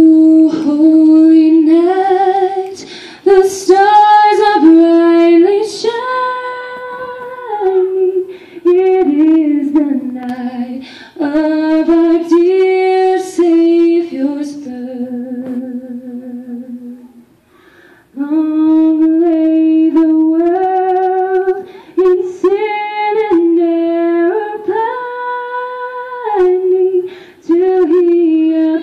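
A small a cappella vocal group singing, a woman's voice leading on long held notes over the other voices. A phrase ends about seventeen seconds in, there is a short pause, and the singing starts again.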